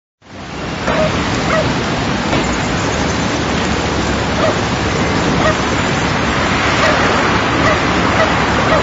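Many spring garden field recordings layered on top of one another into a dense, steady wash of outdoor noise, with short calls poking through about once a second. It starts abruptly just after the beginning and builds to full level within the first second.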